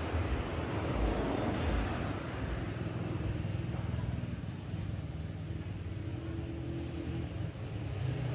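A motor vehicle engine running steadily, a low, even hum.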